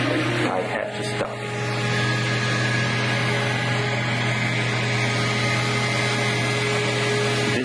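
MakerBot Replicator 2 desktop 3D printer running with a steady mechanical hum and whine, as its build is being cancelled. There are a couple of light clicks about a second in, and the whine stops near the end.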